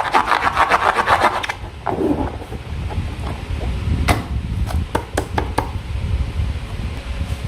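Slime being worked by hand, with sticky clicks and crackles. For about the first second and a half the clicks come fast and dense, then they thin out to scattered sharp clicks over a low rubbing sound.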